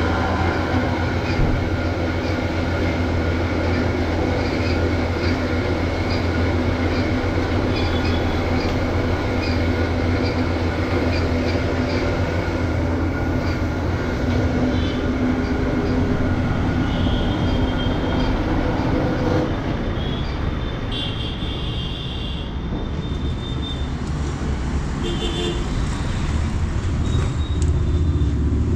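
Steady mechanical running noise: a low rumble with several steady tones and a light, regular ticking, easing off a little about two-thirds of the way through.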